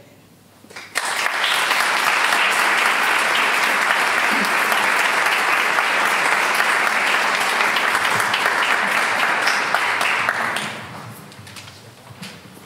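Audience applauding, starting about a second in and fading out after about ten seconds.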